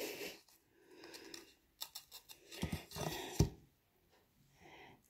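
Quiet handling of adhesive rhinestone sticker strips: a few light taps and clicks against the table and soft rustling of the paper backing being peeled.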